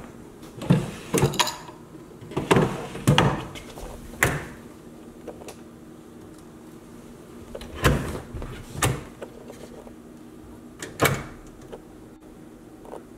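Wooden cabinet doors and drawers being opened and shut by hand: a string of knocks and clunks, about ten in all. They come close together in the first few seconds and further apart after.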